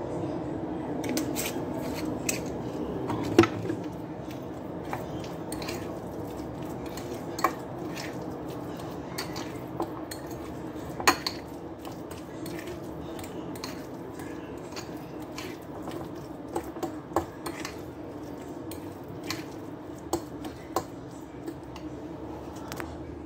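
Metal utensil clinking and scraping against a glass bowl while mashing and mixing potato and beef, with irregular sharp clinks, a few of them louder, over a steady low hum.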